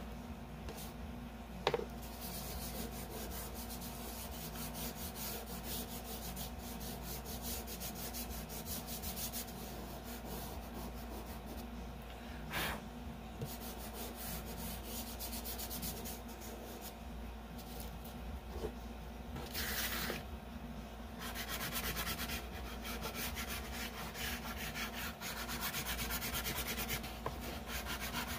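Soft chalk pastel rubbed on paper in a steady run of quick scratchy back-and-forth strokes, with fingers working the pastel into the paper. A couple of sharp taps are heard, and the strokes get rougher and louder for a moment past the middle.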